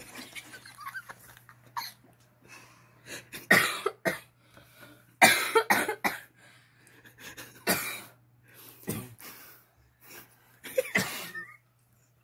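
People stifling laughter behind their hands: a series of short, muffled, cough-like bursts of breath, the loudest about five seconds in.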